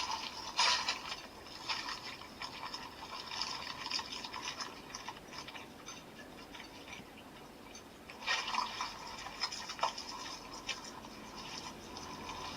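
CSM Century King Sun Driver toy belt playing a fight sound effect through its built-in speaker: wet, squelching gore noises mixed with hits, loudest at the start and again about eight seconds in. The effect depicts the grasshopper kaijin tearing out a spider kaijin's innards.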